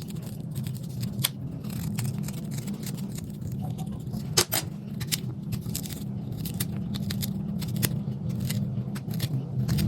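A knife scraping and cutting out the inside of a raw purple turnip: a run of small, irregular scrapes and clicks, the sharpest about four and a half seconds in, over a steady low hum.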